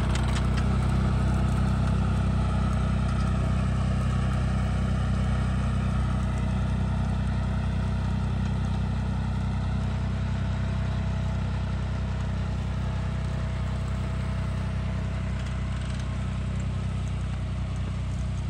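John Deere tractor's diesel engine running steadily under load as it pulls a seed planter through tilled soil, easing off slightly in loudness.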